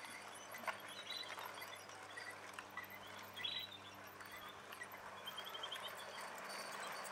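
7mm-scale model GWR 57xx pannier tank and its goods wagons running along garden track: a faint steady running sound with a few light wheel clicks. Birds chirp briefly now and then.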